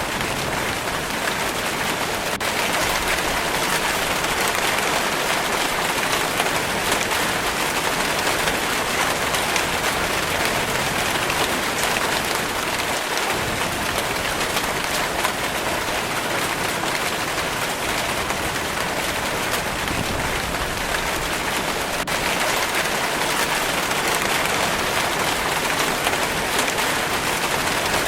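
Steady rainfall pattering on a surface, an even hiss of countless fine drops.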